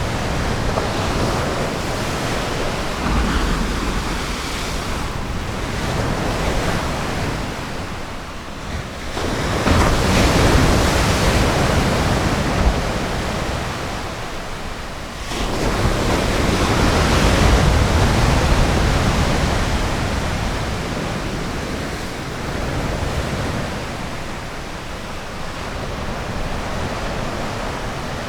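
Ocean surf breaking on a beach: a steady wash of waves, with two big swells crashing about a third and halfway through, easing off in between. Some wind noise on the microphone.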